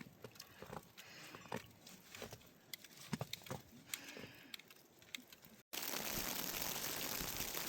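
A flock of sheep moving: scattered, irregular hoof clicks and knocks with faint animal sounds. About six seconds in, an abrupt cut to a steady, louder rushing noise.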